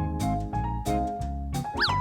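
Bouncy children's background music with a steady beat, and a quick rising-and-falling sound-effect glide near the end.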